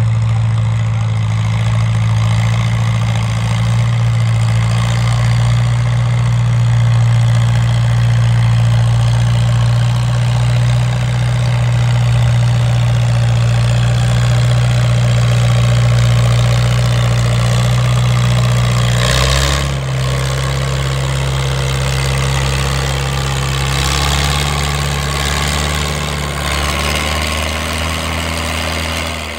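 Farmall M tractor's four-cylinder engine running steadily under load as it pulls a weight-transfer sled. About two-thirds of the way through, its note shifts and holds at the new pitch.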